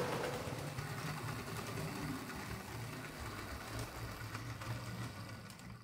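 Hornby R063 'Britannia' OO gauge model locomotive running on track: a steady electric motor and gear hum with light rattling, gradually getting quieter. The motor runs freely now that its bent casing, which had knocked the gears out of line and locked them, has been straightened.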